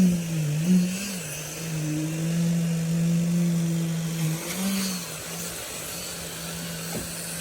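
An engine running at a steady speed with a constant hum, its pitch wavering briefly near the start and again about four and a half seconds in; it grows quieter after about five seconds.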